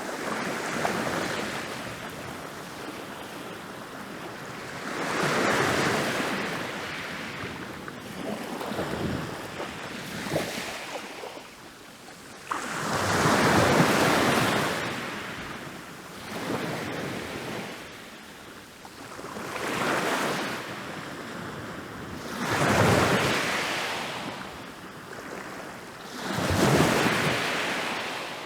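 Ocean waves rolling in and breaking on a beach one after another, each a rush of surf that swells and fades every three to four seconds, the biggest about halfway through.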